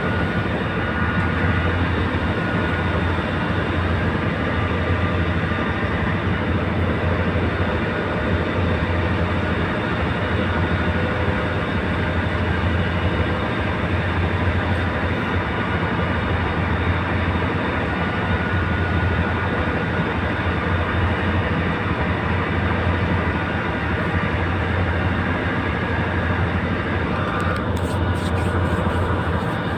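A boat's engine running steadily on board, a constant low drone that does not change in level.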